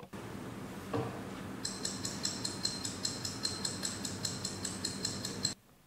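Rapid, even ticking of a countdown clock, about five ticks a second, starting about two seconds in over a steady hiss, marking thinking time; both stop abruptly near the end.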